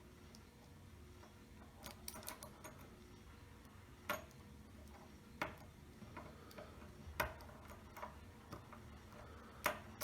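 Small sharp metal clicks of a lock pick working the pins of a Segal five-pin lock cylinder during single-pin picking: a quick cluster about two seconds in, then single clicks at uneven gaps of about a second.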